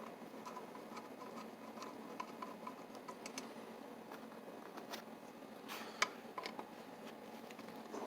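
Screwdriver backing out the small screws on the front of a cast iron mortise lock case: a run of faint quick ticks, then a sharper click about six seconds in.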